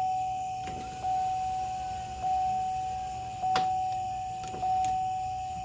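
Car warning chime dinging about once every 1.2 seconds, a single tone that fades after each ding, with two sharp clicks in the second half.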